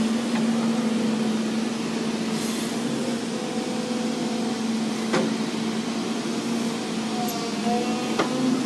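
Volvo excavator's diesel engine running steadily with an even drone. Two sharp knocks come about five and eight seconds in.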